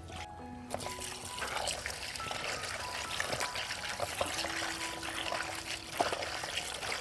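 Water running from a tap onto sliced boiled pork skin in a bamboo basket, with hands squishing and rubbing the wet pieces as they are rinsed clean; the running water starts about a second in and then stays steady.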